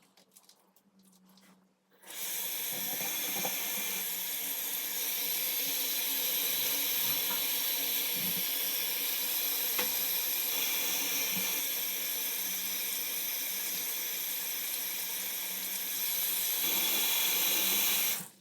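Water running steadily from a tap, turned on about two seconds in and shut off near the end.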